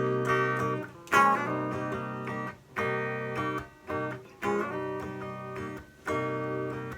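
Acoustic guitar playing an introduction, chords struck about every one and a half seconds and left to ring.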